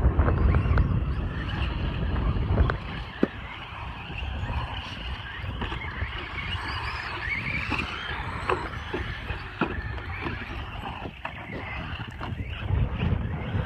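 Traxxas Slash RC short-course trucks racing on a dirt track: a faint motor whine rising and falling as they accelerate and turn, tyres scrabbling on loose dirt, and scattered sharp knocks. A heavier rumble covers the first two or three seconds.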